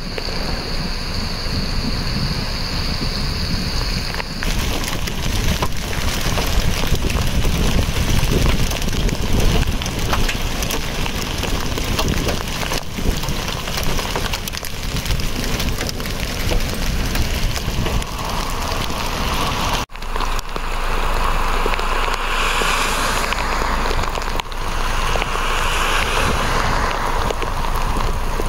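Heavy rain and hail pelting the ground in a thunderstorm, with wind noise on the microphone. The sound changes abruptly about four seconds in and again about twenty seconds in.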